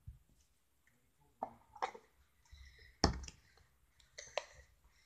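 Small plastic toys and tools being handled on a table: a few separate clicks and knocks, the loudest about three seconds in.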